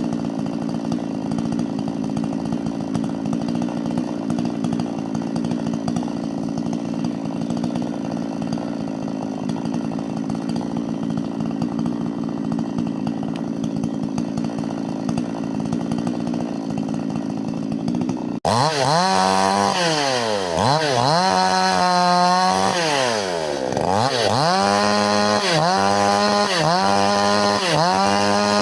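Two-stroke chainsaw running steadily at high speed. About 18 seconds in the sound changes abruptly, and the engine speed then swings down and back up over and over, roughly once a second near the end.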